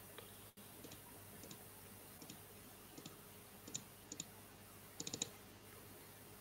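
Faint computer mouse clicks, scattered and irregular, with a quick run of about four clicks around five seconds in.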